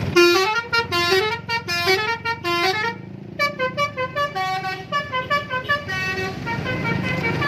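Bus telolet horn, a multi-tone musical air horn, playing a tune of short notes that each bend upward, with a brief pause about three seconds in, then a quicker run of notes that fades toward the end.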